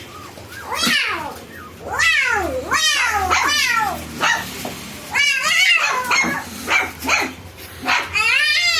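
Golden retriever puppies whining and yelping: repeated high-pitched cries that rise and fall, several overlapping at once, with short lulls about four and seven seconds in.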